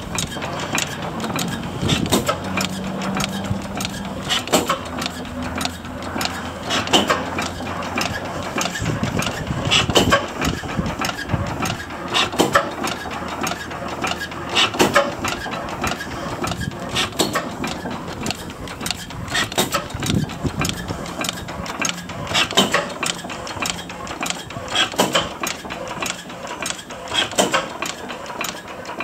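1910 Blackstone oil engine running steadily, its governor recently sorted: a continuous rapid mechanical clatter of clicks and knocks, with a louder beat about every two and a half seconds.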